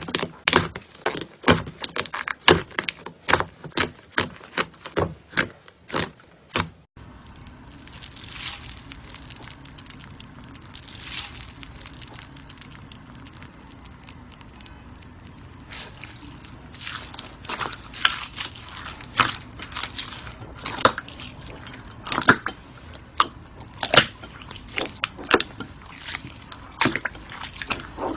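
Slime being squished and worked, with rapid sharp pops and clicks. About seven seconds in the sound changes abruptly to softer squishing, and the popping clicks build up again in the second half.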